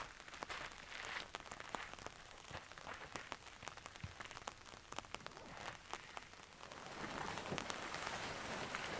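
Light rain falling, with many small irregular drop ticks over a soft hiss.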